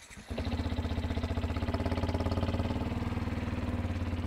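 Yamaha WR125's single-cylinder four-stroke engine fires up about a third of a second in and settles into a steady, evenly pulsing fast idle. The quick tick-over is due to a split inlet manifold boot.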